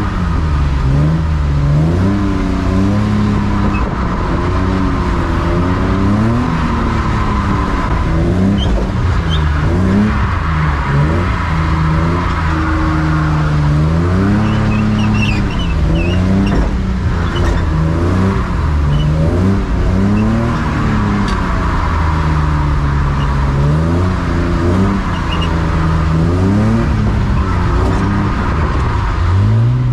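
BMW E36 drift car's engine revving up and down over and over as it is driven hard, its pitch rising and falling every couple of seconds.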